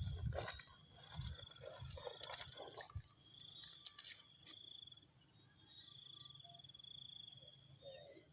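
Insects chirring in a steady, high trill. A few knocks and low thumps sound in the first three seconds.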